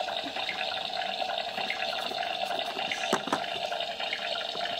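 Toy kitchen playset's electronic sound effect: a steady, thin hiss like running water or sizzling from its small built-in speaker, switched on just before, with a couple of faint plastic knocks about three seconds in.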